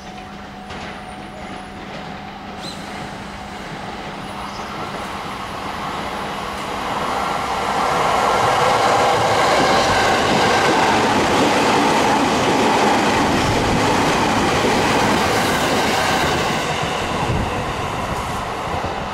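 JR East 209-series electric test train (MUE-Train) running through the station at speed without stopping: the sound of wheels on rail grows steadily as it approaches, is loud as the cars pass, and eases off near the end as it moves away.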